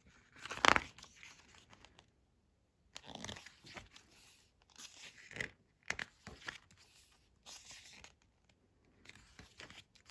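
Glossy photobook pages being turned and smoothed by hand: a series of paper swishes, rustles and crinkles, the sharpest one about half a second in.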